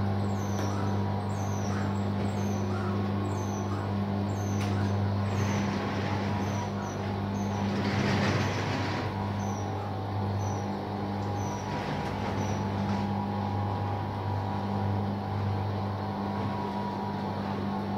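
Electric drive motor of a retractable fabric pergola roof running with a steady low hum. Faint high chirps repeat in the background, and a brief rush of noise comes about eight seconds in.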